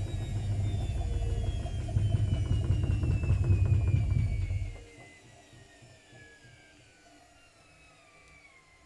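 Whirlpool FL 5065 washing machine drum spinning down from a 600 rpm spin with an unbalanced load: a steadily falling motor whine over a heavy rumble and rattle. The rumble drops away sharply about five seconds in, and the drum coasts on with the whine still falling.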